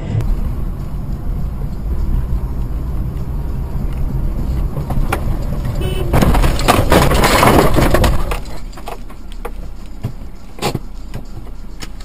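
Car crash heard from inside the car through a dashcam: a low steady rumble, then about six seconds in a burst of loud crashing and scraping lasting about two seconds, after which a quieter hum remains with a few knocks.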